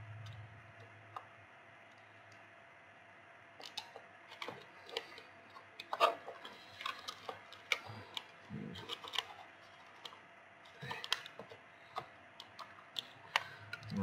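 Irregular small clicks and taps of a screwdriver and a metal 2.5-inch drive caddy being handled while its screws are worked, starting a few seconds in.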